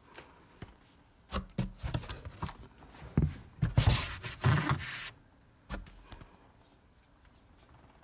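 Cardboard box flaps being pushed open and handled: a run of rubbing and scraping noises with small knocks, the loudest a dense scrape about four seconds in. A single knock follows a second later.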